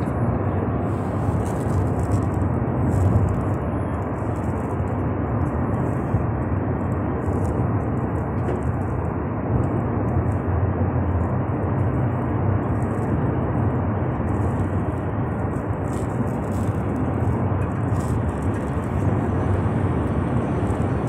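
Steady road and engine noise heard inside a car cabin while driving at highway speed, an even low rumble with no breaks.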